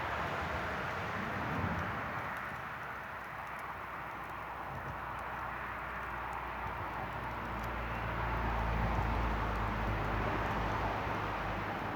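Campfire burning with a steady hiss and faint crackles, under a low rumble that swells about eight seconds in and fades near the end.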